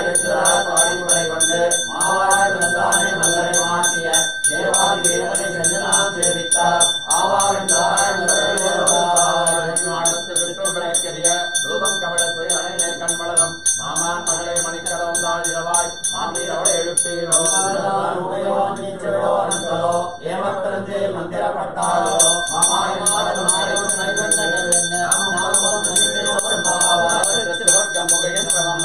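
Brass puja hand bell (ghanta) rung rapidly and steadily over a chanted mantra. The bell stops for a few seconds a little past the middle and then starts again.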